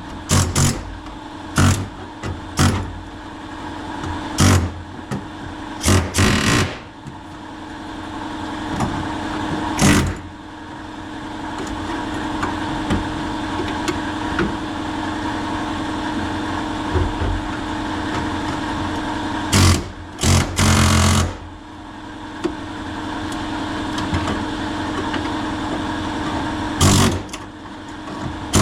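Air compressor running steadily, with repeated short bursts of a pneumatic air chisel hammering through the rusted sheet-metal floor pan of a Jeep XJ.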